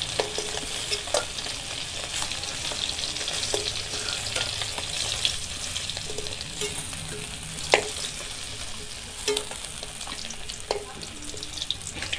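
Fish pieces frying in hot mustard oil in a metal kadai, a steady sizzle. A metal spatula clicks against the pan now and then as the fried pieces are lifted out.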